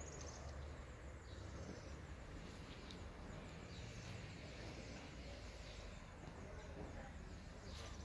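Quiet outdoor ambience: a steady low background rumble with faint, short high bird chirps every second or two.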